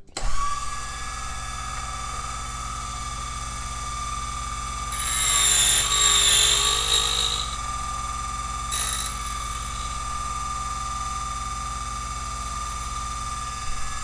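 Silca Flash 008 key duplicator switching on and running with a steady motor whine while its cutter wheel cuts the last cut of a brass key, the carriage tracing a number-four space and depth key. The cutting grows louder for about two seconds around five seconds in and briefly again near nine seconds. The machine switches off at the very end.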